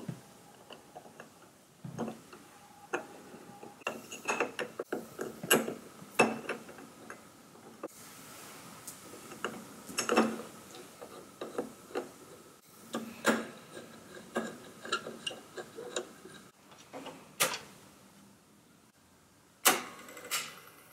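Small irregular metallic clicks, clinks and knocks as a screwdriver and hands work the brake springs and brake band of a Revox B77 reel-to-reel's tape transport.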